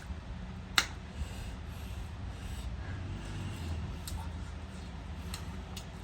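A person eating and chewing, with a few sharp clicks or crunches. The loudest comes just under a second in, and a few smaller ones follow later, over a low steady hum.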